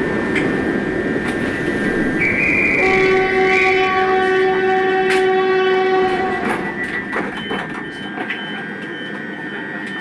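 A train running with its horn sounding: a long, steady horn note is held in the middle over the rumble and clatter of the train. A few sharp clicks follow near the end.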